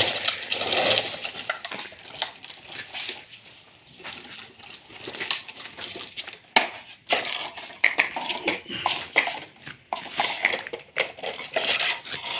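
Excavator digging: irregular clicks, knocks and scraping of the bucket working through material, with no engine sound.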